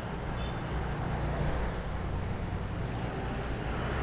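Steady road-traffic noise with a low rumble, heard while riding along a city road, with wind rushing on the microphone.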